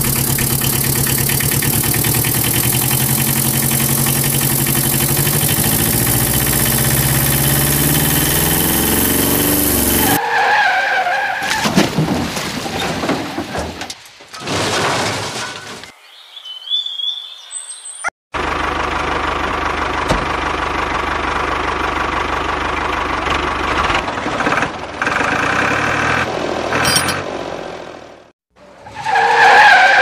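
Tractor engine sound running steadily, laid over footage of toy vehicles that have no engines. It is broken by abrupt cuts about ten and eighteen seconds in, with short patches of other sound between them.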